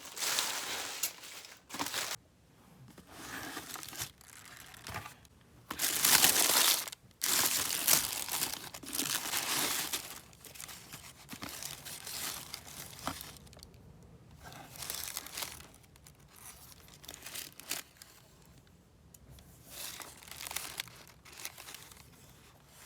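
Sneaker packaging being crinkled and torn open by hand, in irregular bursts of rustling that are loudest about six to ten seconds in and thin out toward the end.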